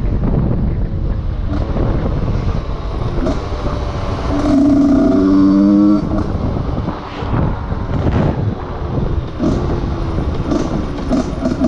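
Husqvarna SM 125 two-stroke single-cylinder engine running through a new handmade exhaust silencer, revved up and held at a steady high rev for about a second and a half about four seconds in, then dropping back and blipping unevenly.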